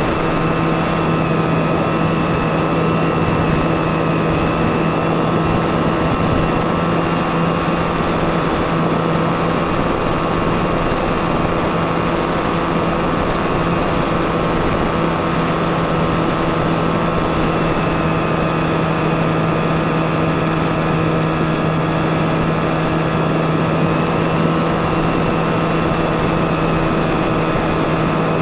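Electric motor and pusher propeller of a Skywalker FPV plane running steadily in cruise, heard through the onboard camera: an even hum with a higher whine over rushing air.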